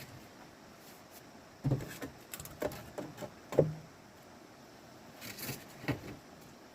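Work sounds of hard objects being handled: two loud dull knocks about two seconds apart, lighter clicks between them, and a short scraping rustle near the end.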